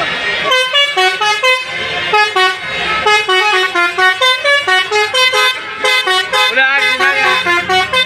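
A bus's basuri horn, a multi-tone musical air horn, sounds a held chord and then from about half a second in plays a fast melody of short stepped notes. A few notes waver in pitch near the end.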